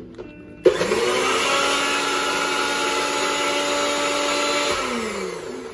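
NutriBullet personal blender starting abruptly about half a second in and running steadily as it blends fruit, then winding down with a falling pitch near the end.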